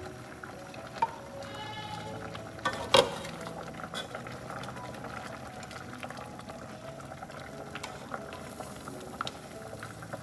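Blended corn mixture bubbling in a cooking pot, a steady bubbling with scattered small clicks and one sharp knock about three seconds in.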